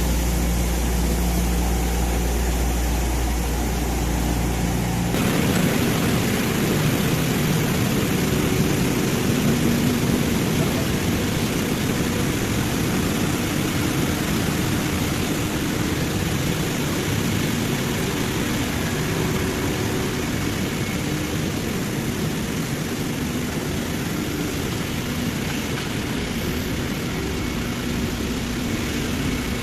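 Glass-processing machinery running with a steady mechanical noise. About five seconds in, the sound changes abruptly from a low steady hum to a denser, hissier machine noise.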